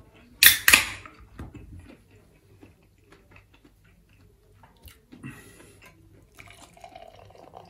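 Beer can's pull tab cracked open, two sharp snaps with a hiss about half a second in. Beer then poured from the can into a glass, a soft splashing hiss from about five seconds in to the end.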